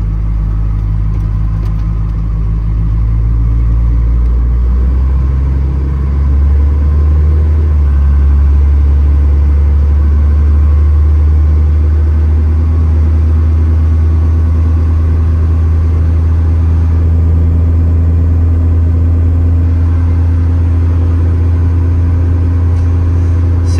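First-generation Dodge Ram's 5.9-litre Cummins 12-valve inline-six turbo diesel running under way, heard from inside the cab. It climbs in pitch and loudness over the first several seconds as the truck picks up speed, then holds steady at cruise with tyre and road noise underneath.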